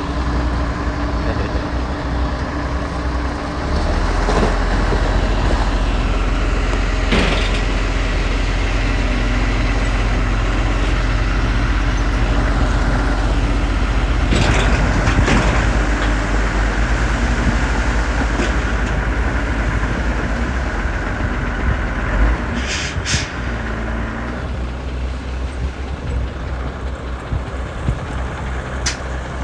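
Heavy diesel earthmoving machinery running under load, the engine note rising and falling. There are a couple of brief high-pitched squeals or hisses about three quarters of the way through.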